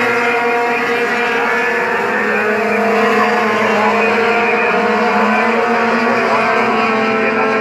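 A pack of racing sport trucks running at speed around the track: a steady, layered engine drone of several trucks at once, the pitches slowly shifting as they pass.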